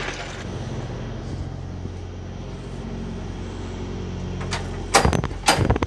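Semi-truck diesel engine idling, a steady low hum, with a few sharp knocks near the end.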